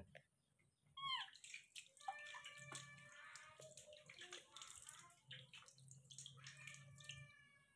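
Faint splashing and dripping of water scooped by hand from a small basin and poured and rubbed over a baby monkey's head, with many small splashes and drips from about a second in.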